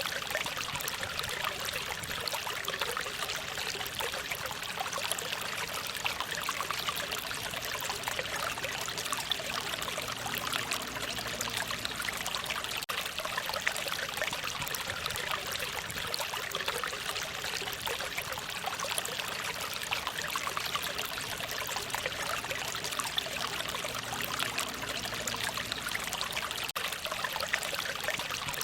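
A small mountain stream running steadily with a light, trickling babble, mostly high in pitch with little low rumble.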